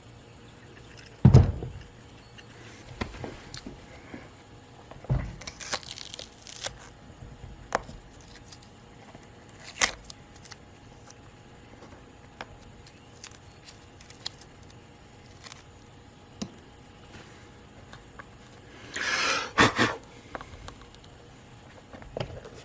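Workbench handling sounds: scattered knocks and clicks of parts and tools being set down and moved, with a heavy thump about a second in, a short scraping rustle around six seconds, and a louder rustle or scrape near the end.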